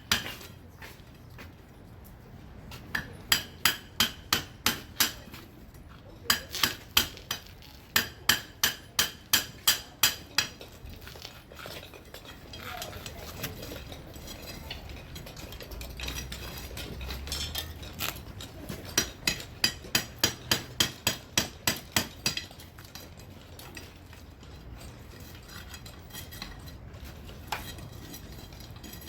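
Hammer blows on a steel chisel, each with a metallic ring, driving it into the clay wall of a tatara smelting furnace to break it apart. The blows come in quick runs of about three a second, with pauses of a few seconds between runs.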